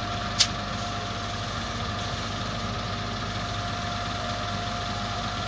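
XCMG LW300KN wheel loader's diesel engine running steadily at low revs, with a single sharp click about half a second in.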